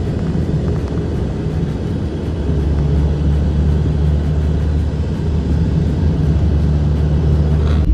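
Car driving along a highway: a steady low rumble of engine and tyres, with a low hum that grows stronger about two and a half seconds in.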